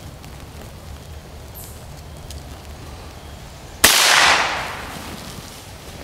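A single gunshot from a squirrel hunter's gun, a sudden loud crack about two-thirds of the way in, its echo fading away over about a second.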